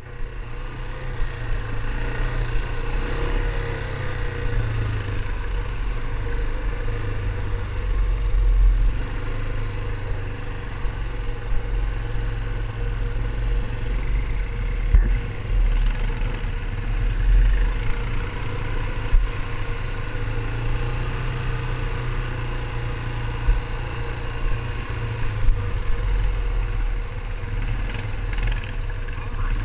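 Yamaha ATV engine running steadily as the quad rides along a rough dirt trail, under a heavy low rumble, with a few short knocks and rattles from bumps.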